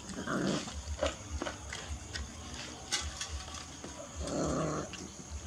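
A litter of puppies eating together from shared plates: small clicks of chewing and lapping, and two short growls as they jostle over the food, one about half a second in and one near the end.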